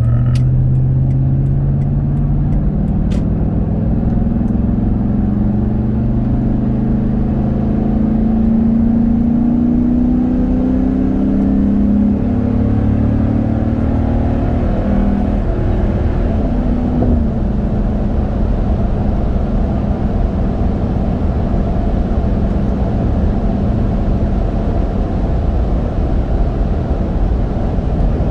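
SUV accelerating hard up to highway speed, heard from inside the cabin: the engine note climbs over the first dozen seconds or so. It then settles into a steady drone of road noise from Mickey Thompson Baja Boss A/T all-terrain tires at about 80 mph.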